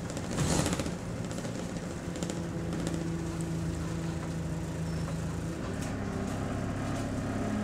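Euro 5 Alexander Dennis Enviro200 Dart bus with an Allison automatic gearbox, heard from inside the saloon while under way: the engine and driveline run with a steady pitched whine that shifts and climbs about six seconds in. There is a brief hiss near the start.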